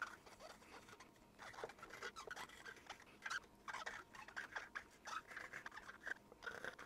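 Faint, irregular scratchy rubbing as the contacts of a Commodore Plus/4 keyboard circuit board are wiped down with isopropyl alcohol to clean off dirt.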